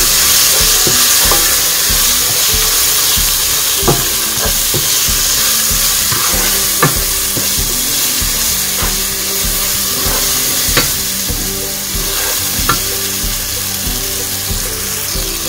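Onion-tomato masala with spice powders sizzling in oil in a pot while being stirred with a wooden spatula, a steady frying hiss with occasional sharp clicks of the spatula against the pot.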